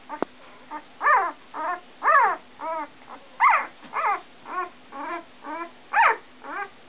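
Golden retriever puppy whining in short cries that fall in pitch, about two a second, several of them louder, its distress at standing on an unfamiliar glass surface. A sharp click sounds just after the start.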